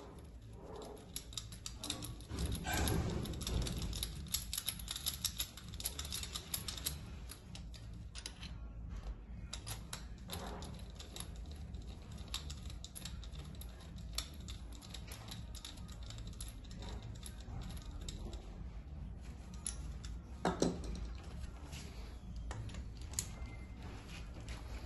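Light metallic clicking and ticking of hand tools and a compression tester's brass adapter being worked at the glow-plug holes of a bare diesel engine. The clicks come thickest in the first several seconds, with a couple of louder knocks later.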